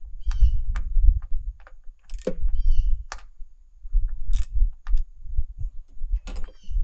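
Scattered clicks and knocks of a small ratchet and hands working a coil pack's hold-down bolt and plastic connector on an engine, over a continuous low rumble.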